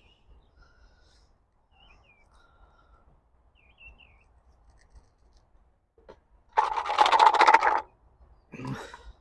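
Faint bird chirps, then a loud rasping scrape lasting about a second from gear being handled, and a shorter, lower rustle near the end.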